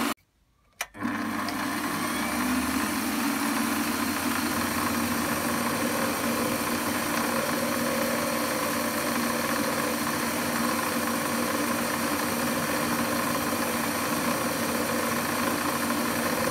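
Warco lathe running steadily, its headstock spinning a centre drill that is fed very gently into a metal workpiece, a constant machine hum with no change in pitch. The sound cuts out for under a second just after the start.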